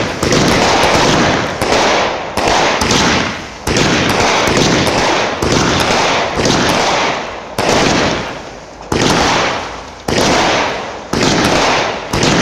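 Ruby Red 500 gram, 20-shot firework cake firing shot after shot, about one a second: each a sudden loud report that fades away before the next, with white strobe mines going off beneath the red shells.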